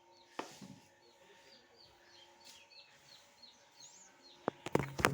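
A small bird chirping over and over: short, high notes that each slide downward, a few per second. A sharp click sounds about half a second in, and a louder cluster of knocks and clicks comes near the end.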